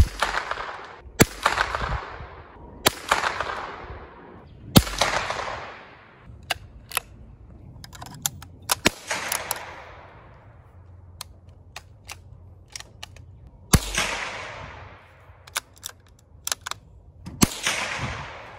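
Seven shots from .22 bolt-action rifles, each a sharp crack trailed by about a second of echo. Quieter metallic clicks of a bolt being worked fall in the gaps between shots.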